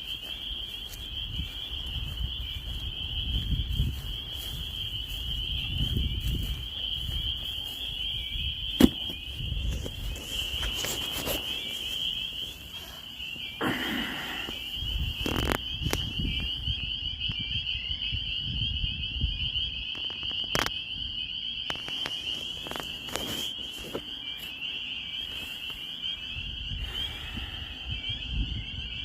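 Dense chorus of spring peepers: many high, shrill peeps overlapping into one continuous ringing band. A low rumble sits under it in the first half, and a sharp click sounds about nine seconds in.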